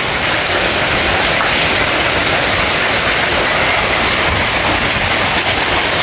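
Heavy hail with rain falling on a tree's broad leaves and the ground, a loud, dense, steady hiss. The hail is hard enough to be breaking the leaves.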